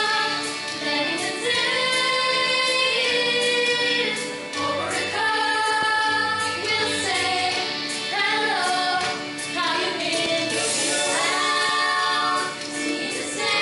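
Several female voices singing a musical-theatre song together, phrase after phrase with brief dips between lines.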